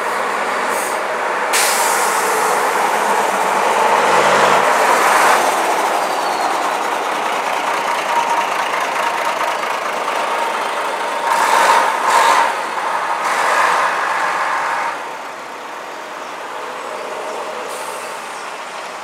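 Heavy diesel buses and a coach driving past close by, engines running as they pull away, with sharp hisses of air about a second and a half in and again around eleven to twelve seconds in.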